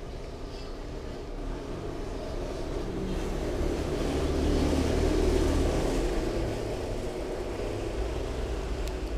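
Low rumble of a passing motor vehicle, swelling to a peak about five seconds in and then fading.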